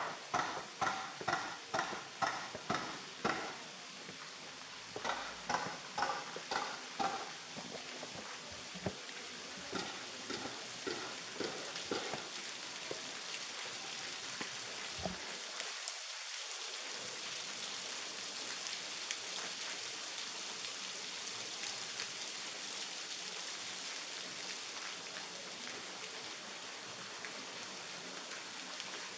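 Footsteps on stone steps, about two a second, for the first several seconds, then a steady hiss.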